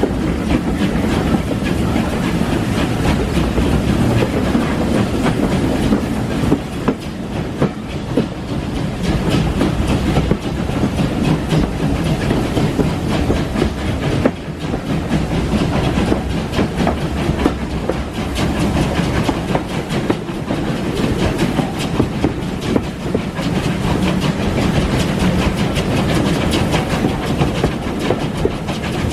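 Railway carriage running along the line: a steady rumble of wheels on track with many quick clicks from the rail joints.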